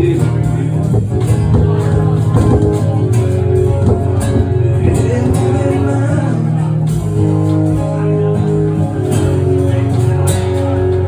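Music with guitar over steady held low notes.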